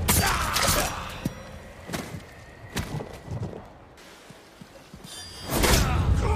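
Katana sword-fight sound effects: a loud sudden blade hit at the start leaves a high metallic ring, followed by a few lighter sharp hits, then another loud hit near the end.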